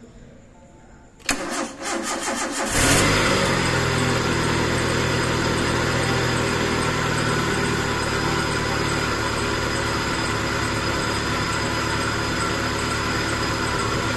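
Fuel-injected petrol car engine cranking on the starter for about a second and a half, then catching and settling into a steady idle, started up after its fuel injectors have been cleaned and refitted.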